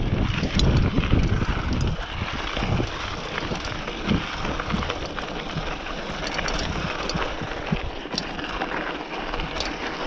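Wind buffeting the microphone over mountain bike tyres rolling on dirt and gravel, with scattered short clicks and rattles from the bike. The wind rumble is heaviest for the first two seconds, then eases.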